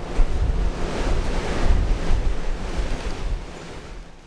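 Wind buffeting the microphone in uneven gusts over a steady hiss, fading out near the end.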